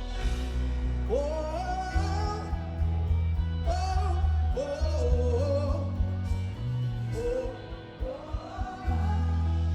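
Live gospel band music: a solo voice sings long phrases that slide in pitch, three times, over a heavy, steady bass line.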